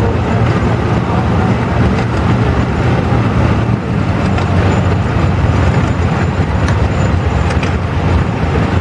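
Engines of several antique farm tractors running at low speed as they drive past in a line: a steady, loud, low engine drone.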